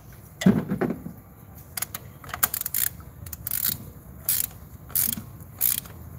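Ratchet clicking in short bursts as a spark plug socket is turned on a Toyota Probox's four-cylinder engine, with a knock about half a second in.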